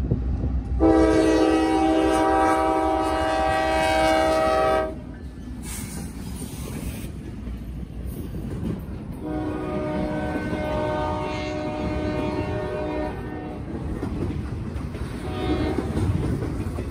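Norfolk Southern diesel freight train's multi-chime air horn sounding two long blasts of about four seconds each, the first louder, over the steady rumble of freight cars rolling past close by.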